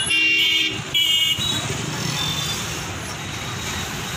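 Street traffic rumbling, with two vehicle horn honks at the start, the first under a second long and the second shorter, about a second in.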